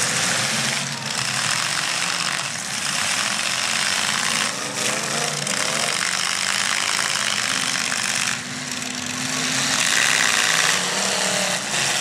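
Several demolition derby cars' engines running and revving together, loud and rough, with their pitch rising and falling as the drivers work the throttle.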